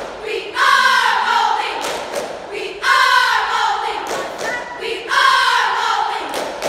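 Cheerleading squad shouting a cheer in unison: three drawn-out chanted calls about two seconds apart, with sharp claps between them.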